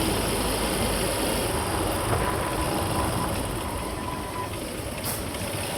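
Steady running noise of a moving vehicle: engine and road noise mixed with wind.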